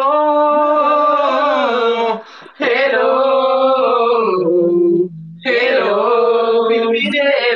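A man singing unaccompanied in three long drawn-out phrases with held notes, the second sliding down in pitch at its end.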